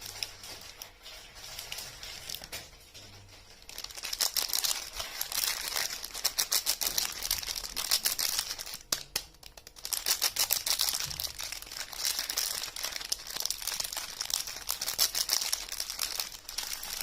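Soap packaging being unwrapped and crinkled by hand: soft handling at first, then dense crackling from about four seconds in, a brief pause near the middle, and more crackling.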